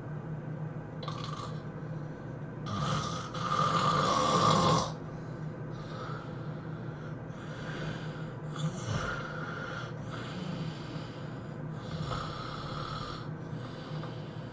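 A person snoring in sleep: a run of separate snores, the loudest and longest starting about three seconds in and lasting about two seconds. A steady low hum runs underneath.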